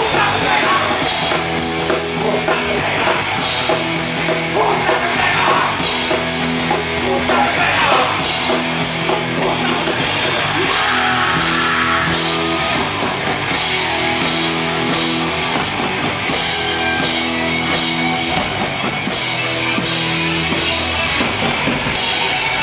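Live rock band playing a heavy, distorted guitar song, with electric guitars, bass and drum kit and some singing over it.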